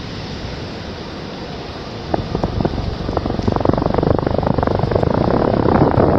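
A vehicle crossing the concrete viaduct overhead: a dense rattling rumble that starts about two seconds in and grows louder, over a steady hiss of wind.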